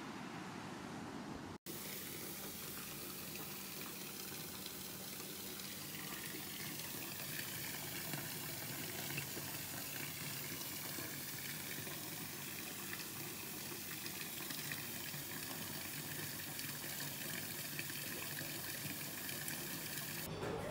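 Tap water running steadily into a bathtub, where a pink bath bomb is dissolving. It starts suddenly about a second and a half in.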